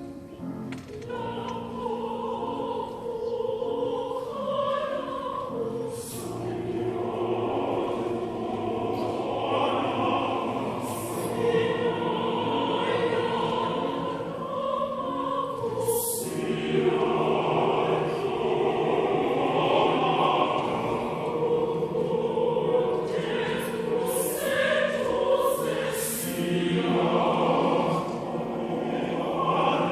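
Choir singing in several-part harmony, the voices holding long chords that shift every few seconds.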